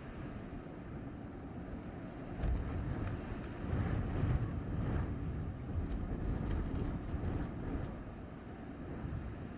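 Blizzard wind blowing in gusts, a deep, low noise that swells about two and a half seconds in, peaks around four to five seconds and eases near the end.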